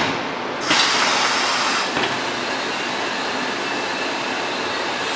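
Compressed air hissing loud and steady in a tire shop, starting about a second in, from tire mounting work on a wheel.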